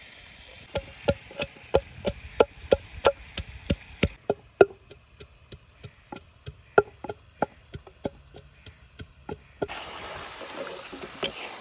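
Sharp knocks of a kitchen utensil, about three a second at first, then slower and irregular. Near the end they give way to the steady hiss of chicken frying in oil in a karahi.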